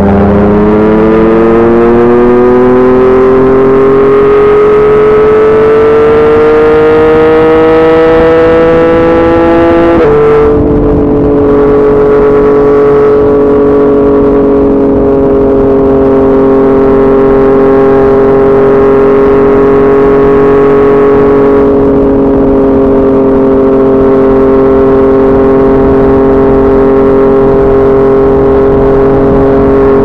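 Yamaha MT-09's inline three-cylinder engine through a Yoshimura R55 slip-on exhaust, accelerating with the pitch rising steadily. About ten seconds in it shifts up with a sudden drop in pitch, then holds a steady pitch while cruising.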